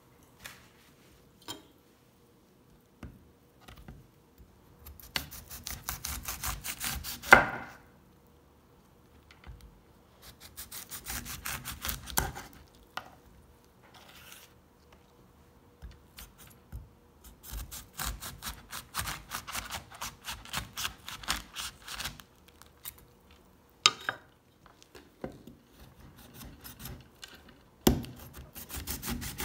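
A kitchen knife sawing back and forth through tough pomegranate rind in several short bouts of quick strokes, with the blade now and then knocking sharply on a wooden cutting board.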